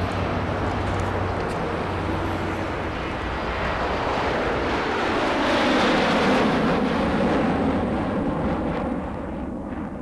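A rushing roar that swells to its loudest about six seconds in, its pitch sinking as it fades, then drops away near the end.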